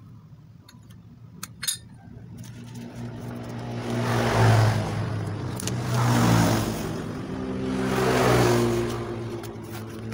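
A couple of light metal clinks as differential spider gears are set into the carrier. Then an engine revs up and down in repeated swells, about every two seconds, and this is the loudest sound.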